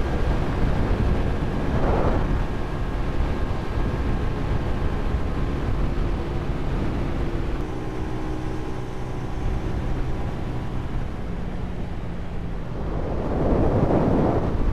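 Hyosung 250cc V-twin motorcycle engine running steadily at highway cruising speed, heard from a bike-mounted camera under heavy wind rush. A louder whooshing swell comes about two seconds in and another builds near the end.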